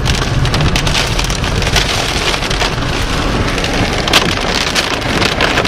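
Heavy wind-driven rain from a microburst hitting a vehicle: a loud, steady hiss full of sharp ticks of drops striking, over a steady low wind rumble.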